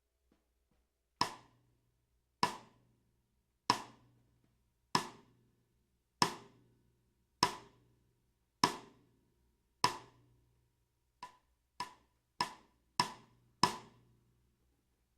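Sonor Designer 14x5" maple-shell snare drum struck with eight single strokes about a second and a quarter apart, each ringing out briefly, then a quicker run of five strokes near the end, the first of them soft.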